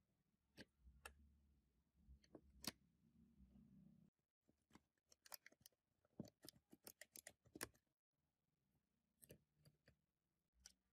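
Faint, scattered clicks and taps of small plastic parts being handled as a mud-caked drone remote controller is taken apart, with a quick cluster of clicks in the middle.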